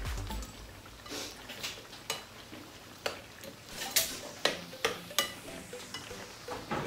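A metal spoon clinking and scraping against a glass bowl as akara bean batter is stirred and scooped, in about nine irregular clinks, some ringing briefly. Underneath is a steady sizzle of bean fritters frying in hot oil.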